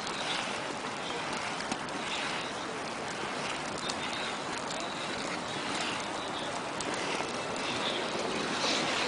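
Inline skate wheels rolling and carving on asphalt during a cone slalom, over a steady hiss of outdoor noise.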